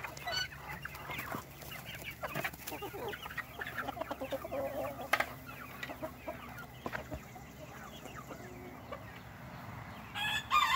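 A flock of chickens clucking as they pour out of an opened coop, with many short, scattered calls. A louder call begins near the end.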